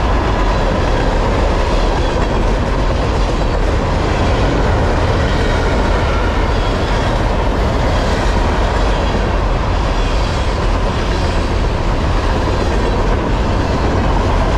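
Empty trash-container freight cars rolling past at close range: a steady, loud rumble and rattle of steel wheels on rail, with a faint steady ringing tone over it.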